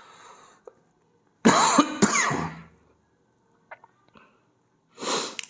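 A person coughing and clearing their throat in one loud rough burst about a second and a half in, lasting about a second, then a shorter breathy burst near the end.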